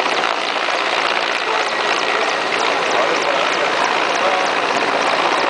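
Mil Mi-17 military transport helicopter hovering low overhead: a loud, steady rush of rotor and turbine engine noise.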